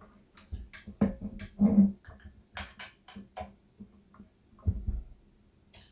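Irregular clicks, knocks and rustling of hands at work, as an Ethernet cable is handled and plugged into a port on the dock, with a few heavier thumps. A faint steady low hum runs underneath.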